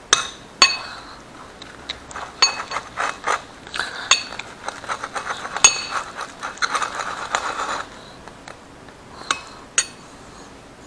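Metal spoon stirring slime mixture in a ceramic plate, clinking and scraping against the plate again and again, with several sharp ringing clinks and a stretch of steady scraping a little after halfway.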